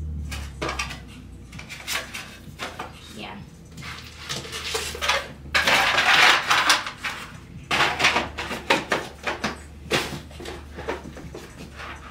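Rigid cardboard Saint Laurent shoe box being handled: its lid and sides knock, scrape and click again and again, with a loud burst of rustling about six seconds in.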